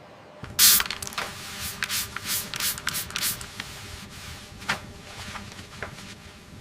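A quick run of short hissing rubbing strokes, about three a second and loudest at the first one, then thinning out to a few scattered strokes.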